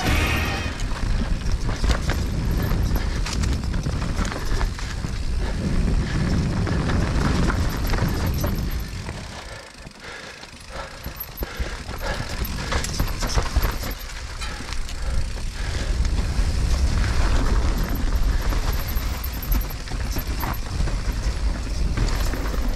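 Mountain bike ridden down a dirt trail, heard from a helmet-mounted camera: steady wind and tyre noise with frequent knocks and rattles from the bike over rough ground. It eases off for about a second and a half about ten seconds in, then picks up again.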